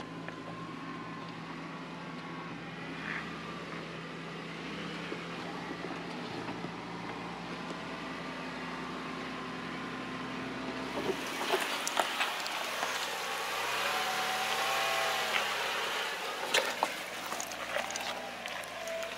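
A 4x4 truck's engine runs steadily at low revs while crawling over a rocky off-road trail. About eleven seconds in, sharp clicks and knocks of the tyres working over rock join it.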